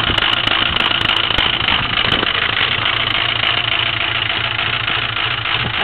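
Ford 6.0 L Power Stroke V8 turbo-diesel idling cold after a cold start, steady with a regular low pulsing beat; its high idle has not yet kicked in.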